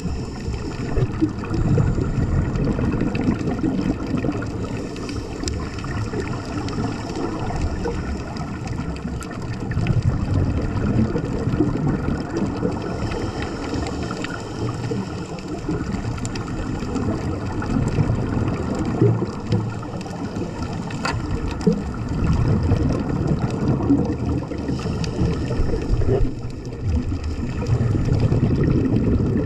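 Muffled underwater sound picked up through a camera's waterproof housing: a low rumble of water that swells and eases every several seconds, with a few faint clicks.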